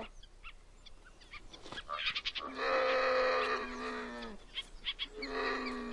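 A wild animal's long, drawn-out call, held for about two seconds, then a shorter call that falls in pitch near the end. A few light clicks and knocks come before it.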